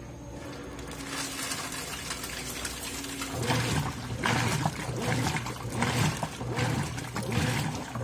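Consul 13 kg top-load washing machine starting its agitation cycle: the agitator begins churning about three and a half seconds in. Soapy water and socks slosh in surges roughly once a second over a steady motor hum.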